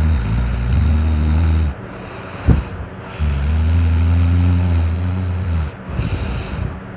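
Loud snoring from a man sleeping after drinking: two long, low snores, one at the start and another from about three seconds in to nearly six, with a brief sharp noise between them. A steady electric fan whirs underneath.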